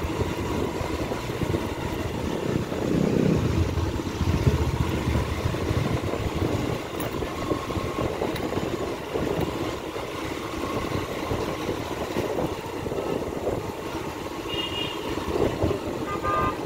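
Motorbike on the move, its engine running under a steady, heavy low rumble with no let-up.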